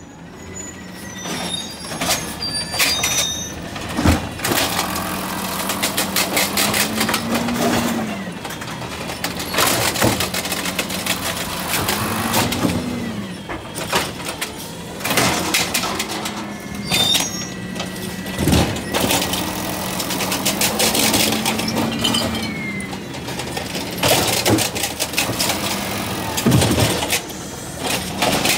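Automated side-loader garbage truck emptying recycling carts. Its engine runs steadily and revs up and back down several times as the hydraulic arm lifts and lowers each cart. There are repeated bangs and clatter as carts are shaken out into the hopper.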